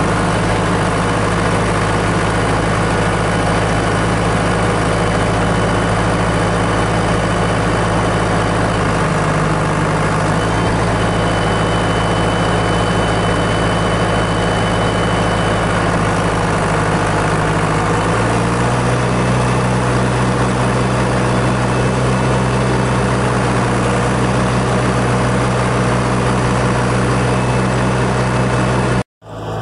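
John Deere 6400 tractor's four-cylinder diesel running steadily under load while pulling a round baler through the hay. Its note shifts slightly twice, and the sound cuts off abruptly near the end.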